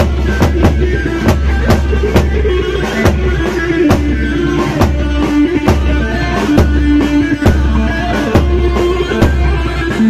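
Instrumental music on an electronic keyboard: a held melody line over a steady drum beat, with no singing.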